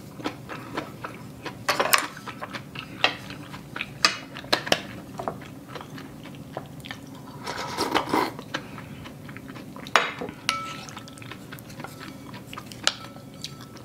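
Eating sounds: chewing of rice cake soup and scattered clicks of chopsticks against a ceramic bowl, with a longer slurp of broth from a small bowl about eight seconds in.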